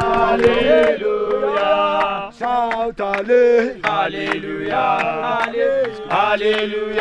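A group of men chanting and singing a hallelujah praise song together, several voices at once, with a run of short, sharp percussive strikes keeping time behind them.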